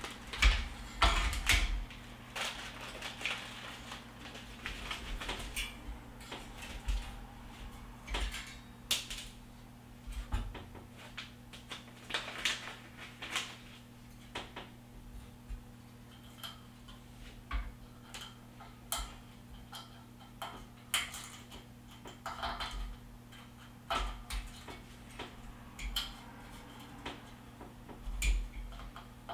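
Hands handling and fitting water-cooling parts and zip ties onto a metal mining-rig frame: irregular clicks, clinks and rattles, with a faint steady low hum underneath.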